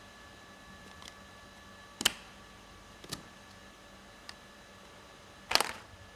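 Five sharp clicks and knocks of parts and tools being handled during a workshop seal and flywheel job on a truck engine, the loudest and longest near the end, over a faint steady hum.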